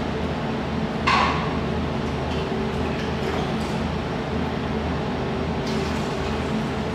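Water chiller for a laser welding machine running with a steady hum. About a second in there is one sharp clack, and later a few light clicks, from the fill cap and a plastic container being handled at the chiller's fill opening.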